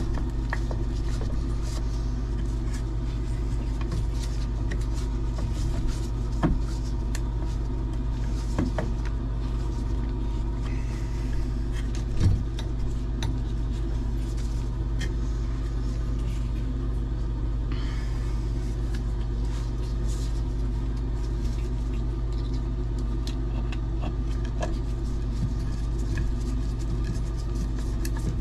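A steady low rumbling hum, with a few light clicks and knocks as copper pipe and fittings are handled; the sharpest knocks come about six and twelve seconds in.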